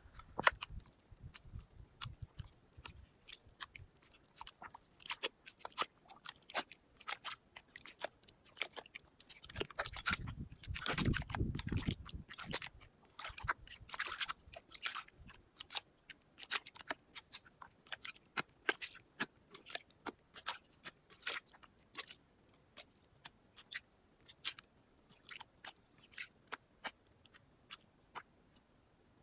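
Digging in wet beach sand: irregular crunching and scraping strokes, with a denser, louder stretch about ten to twelve seconds in.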